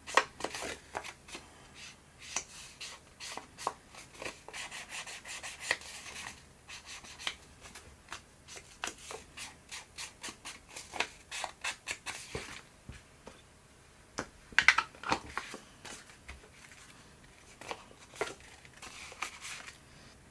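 A small ink applicator rubbed and dabbed along the edge of a paper card in runs of quick, short strokes, with brief pauses and a louder run of strokes about two-thirds of the way through.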